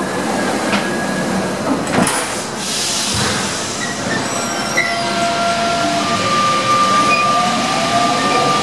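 The sliding doors of a Paris Métro MP 89 rubber-tyred train shut with a thud about two seconds in. Then the train starts moving, with a rumble and the steady whining tones of its electric traction equipment, one of them rising in pitch near the end as it picks up speed.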